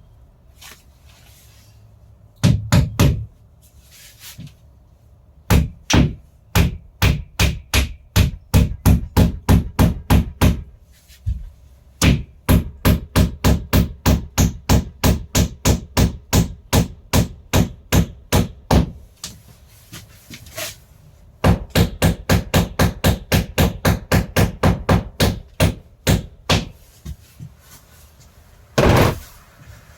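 Hammer striking nails while drywall is hung, in several runs of quick, even blows about two to three a second with short pauses between runs. Near the end there is one longer, duller knock.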